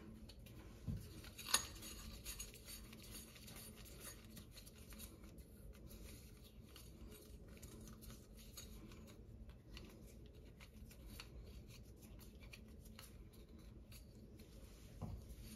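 Faint handling sounds of plumber's putty being pressed by hand around the flange of a metal kitchen sink strainer: soft rubbing with small scattered ticks, and a sharper click about a second and a half in.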